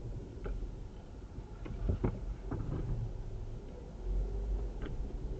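Car on the move: steady low road and engine rumble with a few short clicks and knocks, the loudest about two seconds in.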